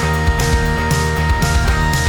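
Background music with a steady drum beat, about three hits a second, under sustained held notes.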